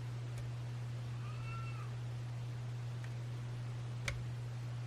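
A cat meows once, faintly and briefly, about a second and a half in, over a steady low hum. Two light clicks from the lock-picking tools come near the start and near the end.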